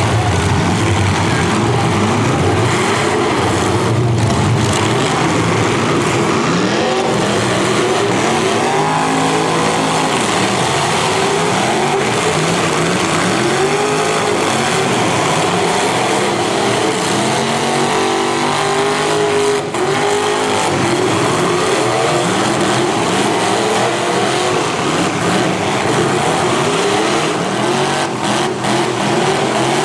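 Several V8 demolition derby car engines revving hard at once, their pitch rising and falling over one another, with a few sharp bangs of impacts.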